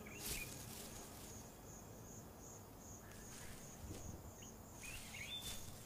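Faint outdoor ambience of insects chirping in a steady high-pitched pulse, about two or three times a second, with a few short bird chirps.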